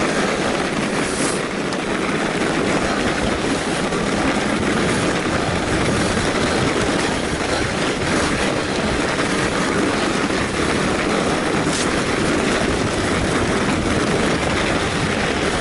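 Fat bike riding along a packed-snow trail: a steady, dense rolling noise from the wide tyres on snow and the bike's rattle, with a few faint clicks.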